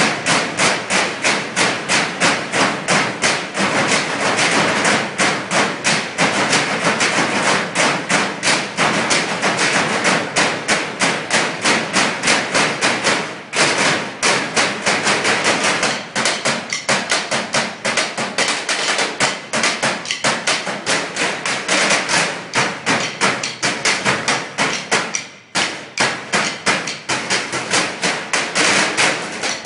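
A group of drummers beating galvanized metal trash cans with drumsticks in a fast, dense rhythm of strikes, with short breaks about 13 seconds in and again about 25 seconds in.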